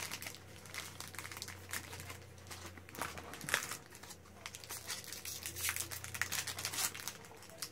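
Crinkling and crackling of a foil booster-pack wrapper being handled and torn open, in irregular bursts of small crackles.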